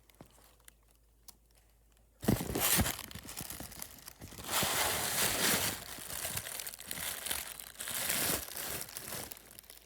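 Handling noise from an iPad being set up as the camera in a mount: quiet at first, a sharp knock about two seconds in, then continuous rustling and rubbing against the microphone with a few louder surges.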